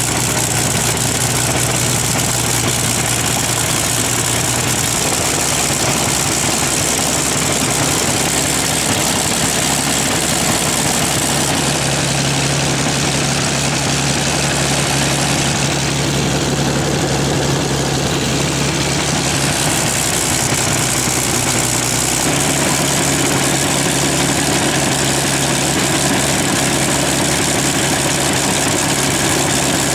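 Rolls-Royce Merlin 27-litre V12 aero engine running with its propeller turning, exhausting through short open stub pipes. It runs steadily, its note shifting slightly about 5 seconds in and again a little after 20 seconds.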